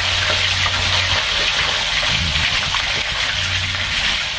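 Vinegar poured from a plastic bottle into a metal pot of sliced peppers, onions and carrots, a steady gushing pour.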